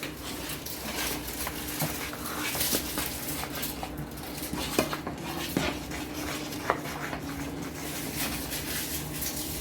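A spoon stirring cake batter in a mixing bowl, with a few scattered clinks of the utensil against the bowl over a steady low hum.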